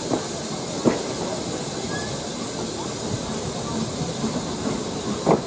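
Steam-hauled passenger train moving off slowly, heard from an open carriage window: steady running noise and hiss, with two sharp knocks from the wheels, one about a second in and one near the end.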